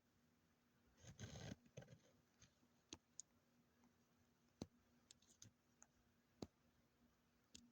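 Near silence with scattered faint clicks, a brief rustle about a second in, and a faint steady hum in the room.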